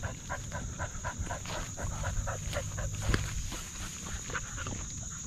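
A dog panting rapidly and rhythmically, about four to five breaths a second, over a low rumble of movement.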